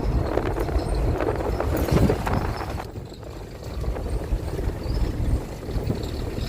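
Steady low rumble and road noise of a moving vehicle, with irregular rattles and knocks on top.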